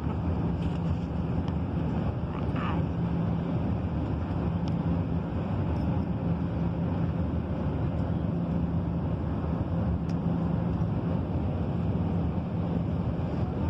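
Steady airliner cabin noise: the even, low roar of the engines and rushing air, with a steady low hum beneath it.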